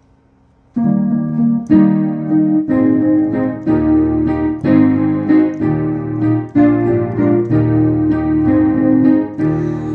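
Piano playing a slow introduction of sustained chords, a new chord struck about once a second, starting about a second in.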